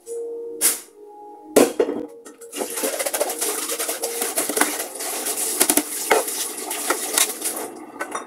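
Kitchen dishes and utensils being handled: a few sharp knocks, then several seconds of continuous clattering and rattling that dies down near the end.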